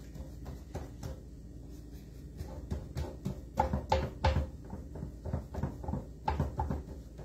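Hands pressing and spreading pizza dough in a round pan, with scattered light knocks and bumps of the pan on the worktop, coming in clusters about three and a half and six and a half seconds in.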